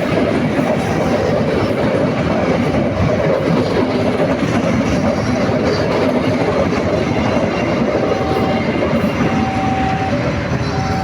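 Passenger train hauled by a CC206 diesel locomotive passing close by: a loud, steady rumble and rattle of the coaches running over the rails. From about eight seconds in, a few short steady tones come in over the rumble.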